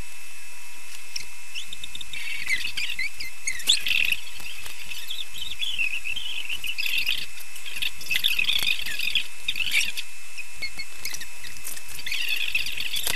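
Small birds chirping and twittering in repeated bursts of quick high chirps.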